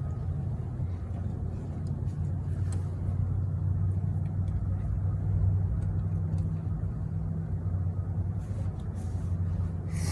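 A vehicle engine running steadily, a low even hum with no change in speed, and a few faint clicks near the end.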